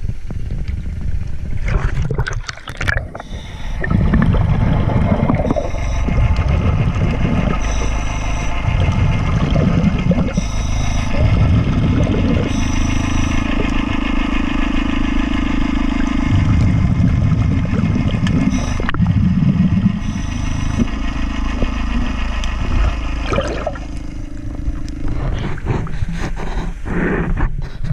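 Underwater sound heard through a camera housing: a muffled rumble with surges of scuba exhaust bubbles every few seconds, and a low steady hum in two stretches. The camera splashes under about three seconds in and comes back up near the end.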